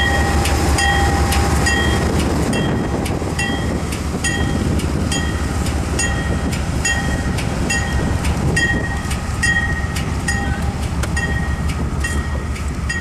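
A passenger train rolls past, rumbling steadily, and its trailing GE B40-8W diesel locomotive slowly moves away. A bell rings steadily, about twice a second, throughout.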